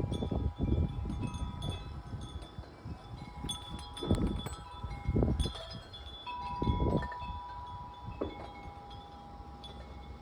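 Wind chimes ringing in gusty storm wind: several tones struck again and again and left to ring and fade. Wind gusts buffet the microphone with a low rumble, loudest about four, five and seven seconds in.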